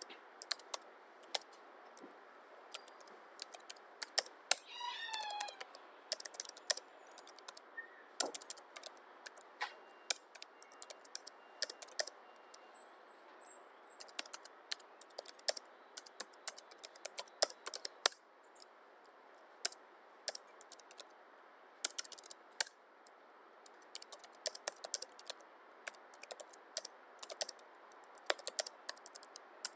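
Typing on a computer keyboard: quick bursts of key clicks broken by short pauses. About five seconds in, a brief pitched call sounds once, falling in pitch.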